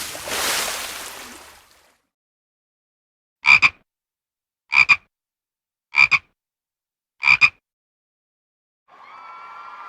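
A frog croaking four times, each a quick double croak, about a second and a quarter apart. Before the croaks, a burst of noise fades out over the first two seconds.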